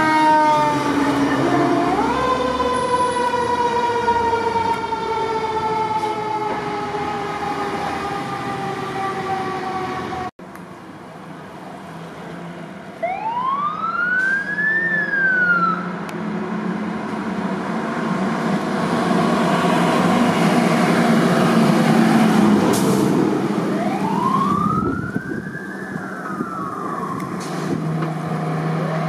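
Fire truck sirens. First a siren's long tone slides slowly downward, jumps back up about two seconds in, then slides down again. After an abrupt cut, another fire truck's siren rises and falls in slow wails, twice and starting a third time near the end, over a steady engine hum.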